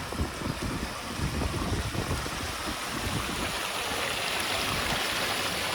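Wind gusting on the microphone, giving way about halfway through to a steady, growing rush of rainwater running down the street.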